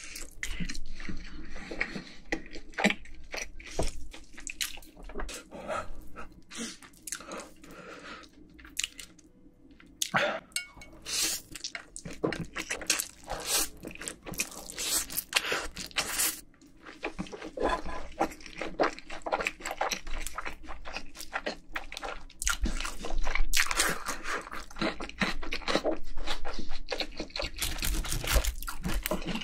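Close-miked eating sounds: a person slurping Buldak spicy stir-fried noodles and chewing wetly, with crunchy bites, in irregular bursts and a quieter pause part-way through.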